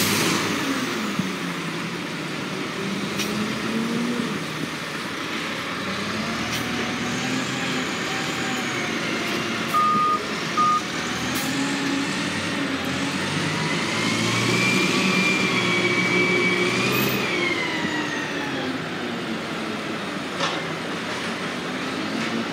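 Diesel engine of a side-loading garbage truck driving past, its pitch rising and falling as it pulls away and changes gear. Two short beeps come about ten seconds in, and a whine rises and falls a few seconds later.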